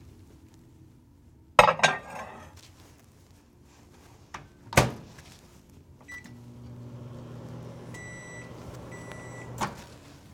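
Microwave oven being loaded and started: a dish clatters in, the door clicks shut, a keypad beep sounds and the oven's low hum starts. Two more beeps come while it runs, and a click about a second before the end cuts the hum off.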